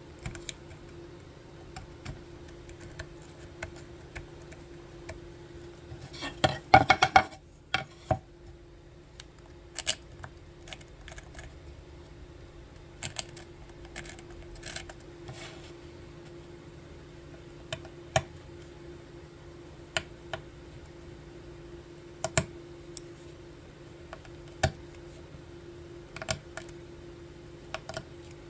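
Hand carving tools cutting and scraping into a wood-burned red oak plaque, taking off the charred surface layer: scattered sharp clicks and short scrapes, with a louder run of scraping about six to seven seconds in. A faint steady hum underneath.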